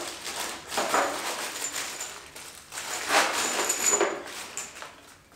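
Gloved hands handling small parts in a plastic tool case: irregular rustling and a few clicks and clatters, the loudest about a second in and around three and four seconds in.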